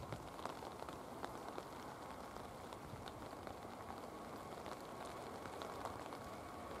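Rain pattering, with small drop ticks, over the steady rushing noise of an Airbus A321's jet engines at take-off power on a wet runway. The engine noise grows slightly louder toward the end, when a faint steady whine joins it.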